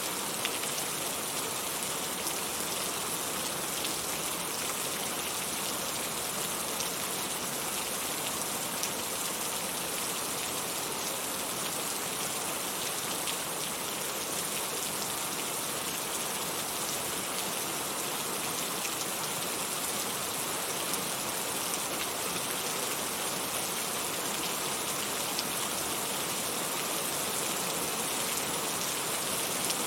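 Heavy rain falling steadily: an even hiss of rain with scattered small drop ticks, and no thunder.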